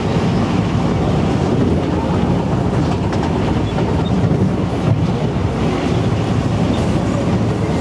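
Inside a moving MTR East Rail Line MLR (Metro-Cammell) electric train: the steady rumble of the train running at speed along the track, heaviest in the low range.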